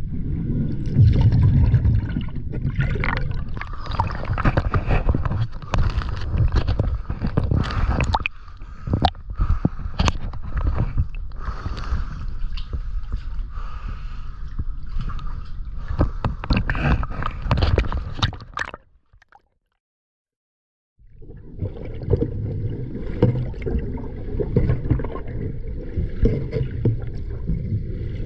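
Water gurgling and sloshing around a camera held at and under the surface beneath a catamaran hull, with many sharp knocks and clicks of handling. The sound cuts out completely for about two seconds a little past two-thirds through, then a steadier gurgling returns.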